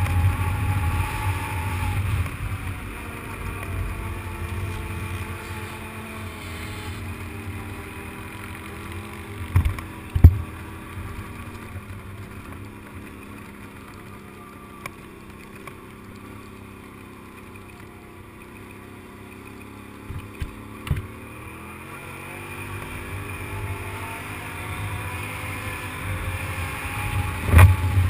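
Quad bike engine running as it is ridden cross-country, its pitch rising and falling with the throttle: it eases off to a quieter run through the middle and picks up again near the end. A few sharp knocks stand out, about ten seconds in and again around twenty seconds.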